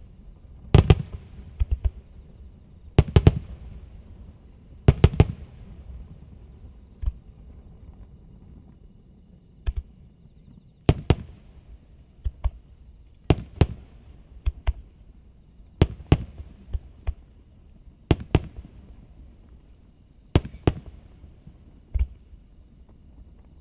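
Aerial firework shells bursting at a distance of about 800 m. A sharp bang comes every second or two, some doubled or in quick clusters, each followed by a short rolling echo.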